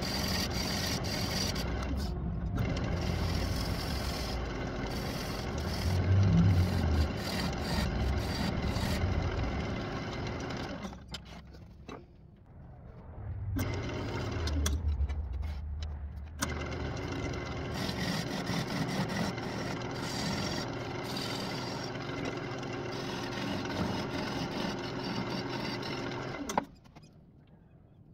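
Wood lathe motor running with a gouge cutting the spinning walnut crotch bowl blank. The sound dips for a couple of seconds about 11 seconds in, then stops abruptly near the end.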